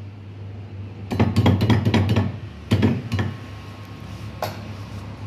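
Kitchen utensils and dishes clattering: a burst of clinks and knocks about a second in, a shorter burst near three seconds and a single knock near the end, over a steady low hum.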